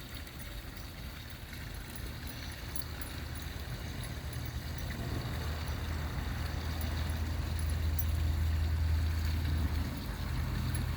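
A low mechanical engine-like drone that grows slowly louder, dips briefly near the end and then carries on.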